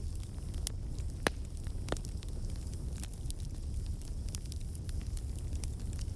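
Wood fire burning in a fireplace: a steady low rumble of flames with irregular crackles and pops, the loudest pops about a second and two seconds in.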